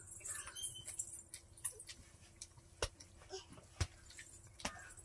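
Close-up eating sounds: chewing and mouth clicks, with soft rustling and a few sharp clicks as fingers mix rice on a banana leaf.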